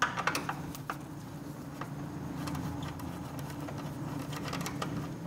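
Light clicks and taps of a hand Torx screwdriver being picked up and set on the battery strap screws, a few sharper clicks in the first second and scattered small ticks after, over a steady low hum.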